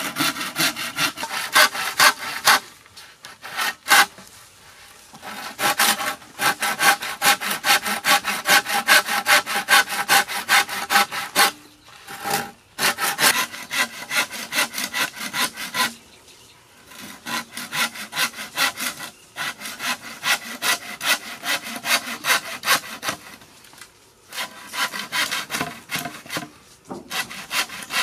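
Hand saw cutting across a thick green bamboo pole: quick back-and-forth strokes, several a second, in bouts broken by short pauses.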